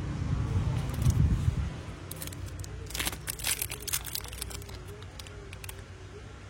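A low vehicle rumble fading away over the first two seconds, then a cluster of sharp clicks and crackling from small objects being handled.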